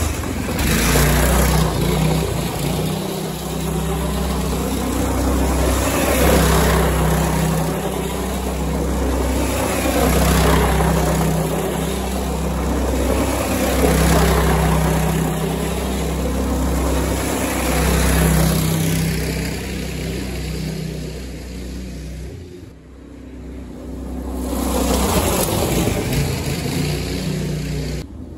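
Small go-kart engine revving hard through a torque converter as the kart spins donuts on loose gravel, its tyres crunching and throwing stones; the revs rise and fall with the throttle. The engine sound drops away briefly about three-quarters of the way through, then climbs again.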